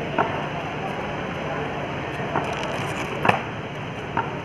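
Sharp knocks about once a second, like hammer blows on stone, the loudest about three seconds in, over steady outdoor background noise.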